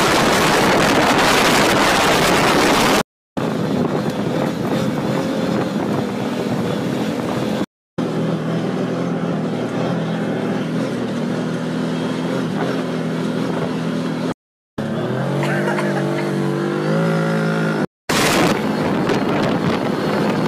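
Side-by-side off-road vehicle driving fast on a dirt track, wind noise buffeting the open cab over the engine. The sound comes in several short clips that cut off abruptly, and in one the engine's pitch climbs and steps down as it revs.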